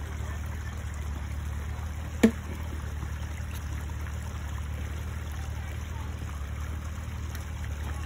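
Side-by-side UTV engines idling, a steady low drone. One sharp knock about two seconds in.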